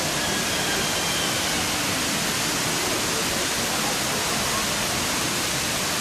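Steady rush of a large indoor waterfall, an even hiss of falling water with no change in level.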